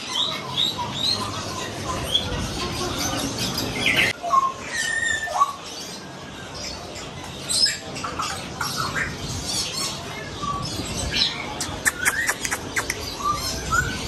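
Many caged pet birds, parakeets among them, chirping and squawking in short, overlapping calls. A quick run of sharp clicks comes about twelve seconds in.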